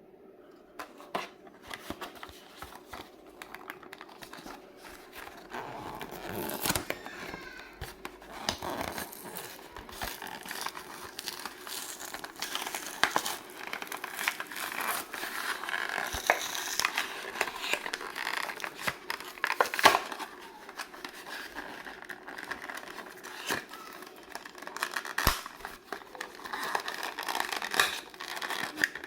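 Packaging of a small die-cast model car being handled and opened: continuous crinkling and tearing, with many sharp clicks and snaps.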